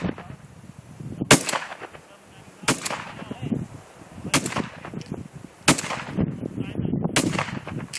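Shotgun fired five times in succession, about one shot every one and a half seconds, each report a sharp crack with a short fading tail.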